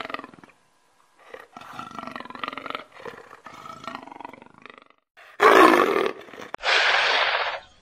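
Leopard calling: a run of hoarse, rasping roars, then two louder, rougher snarls about five seconds in.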